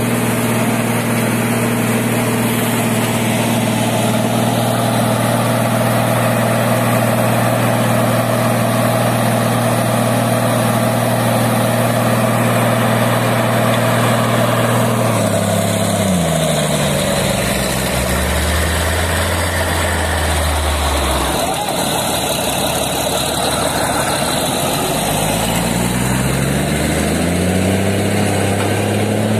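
Heavy diesel engines of a loaded timber truck and a crawler bulldozer working a hill climb under load. The steady engine note drops in pitch about halfway through and climbs back up near the end.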